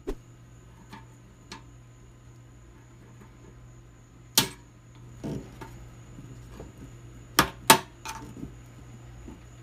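Flathead screwdriver prying and tapping at the steel wire frame of a rusty sheet-metal popcorn popper pan: a string of sharp metal clicks and clinks, the loudest about four and a half and seven and a half seconds in.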